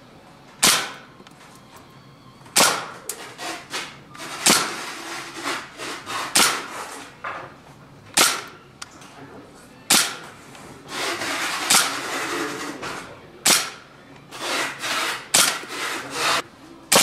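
KWC Desert Eagle CO2 blowback airsoft pistol firing single shots, about nine of them, roughly every two seconds. Each is a sharp crack with the heavy metal slide cycling, and there are smaller clicks and clatter between the shots.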